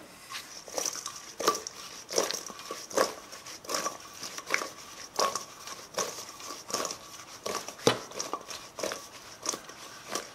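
Marinated zucchini slices being tossed in a stainless steel mixing bowl: the slices slap and slide against the steel in a steady rhythm, about one toss every three-quarters of a second.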